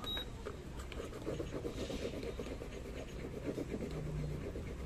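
French press plunger pumped quickly up and down in milk, its mesh screen whipping air into the milk near the surface to make foam. It makes a fast, rhythmic swishing and scraping.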